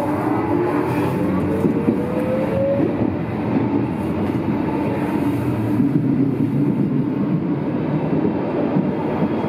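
Berlin U-Bahn class H train heard from inside the car as it pulls out of a station. The electric drive's whine rises in pitch for about the first three seconds, then the train runs on through the tunnel with a steady rumble of wheels on rails.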